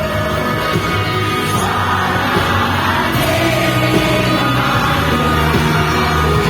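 Music with singing, and a swell of crowd-like noise about two seconds in.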